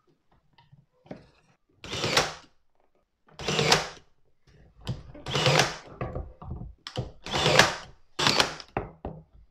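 Electric brad nailer firing brads into the glued corner joints of a pine drawer box: five loud, short shots, each about half a second, at uneven intervals, with faint knocks of handling between.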